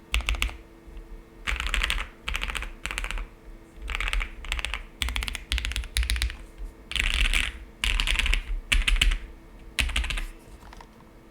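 Typing on a custom gasket-mount mechanical keyboard with a polycarbonate plate, foam inside, lubed Queen switches and GMK keycaps, in quick bursts of keystrokes with short pauses between them. The typing dies away near the end.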